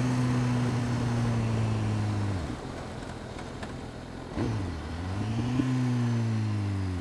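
BMW HP4's inline-four engine running at steady cruising revs, then falling away about two and a half seconds in as the throttle is rolled off. After a short knock near the middle it picks up again, rising in pitch, and then eases slightly. Wind rush over the rider's helmet runs beneath it.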